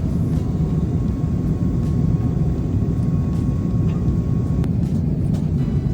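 Steady low rumble of an Airbus A350 airliner in flight, heard from inside the passenger cabin: engine and airflow noise. A faint steady whine runs under it and cuts off about two-thirds of the way through.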